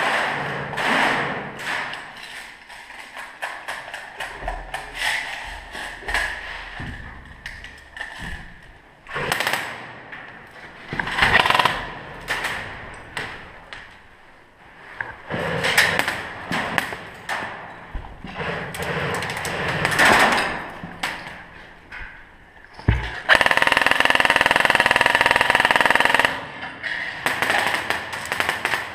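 Footsteps, scuffs and gear knocks on a gritty, debris-strewn floor. About 23 seconds in comes one loud, steady burst of roughly three seconds of full-auto fire from an electric airsoft rifle.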